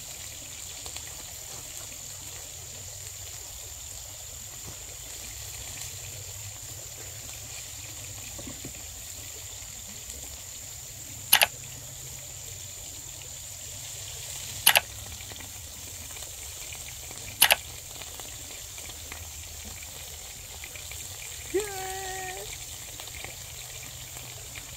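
Three sharp clicks a few seconds apart, each a quick double snap, from the igniter of a portable gas camp stove. Under them runs a steady outdoor hiss with a constant high-pitched tone, and near the end there is a brief hum-like voice sound.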